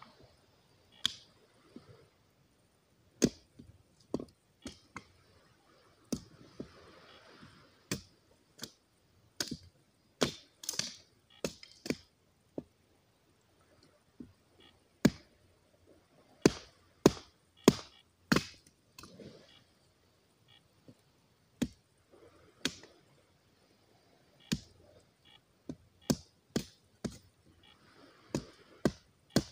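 Small hatchet chopping wood on a stone-topped fire pit: sharp, uneven strikes, often about one a second, some in quick runs and with short pauses between.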